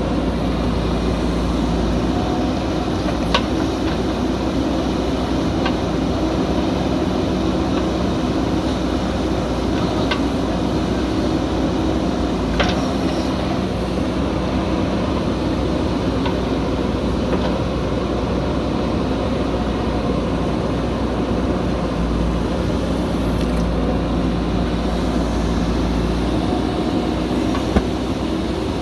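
Diesel engine of a backhoe loader running steadily at work, with a low drone and a few brief sharp clicks or knocks.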